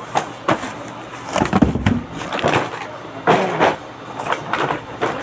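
Plastic toy packaging and cardboard rustling and crinkling as toys are unpacked by hand, in irregular bursts with a few sharp handling knocks.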